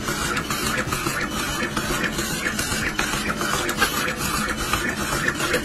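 Electric card-dealing machine flicking playing cards out one after another: a fast, steady run of sharp clicks over the whir of its small motor.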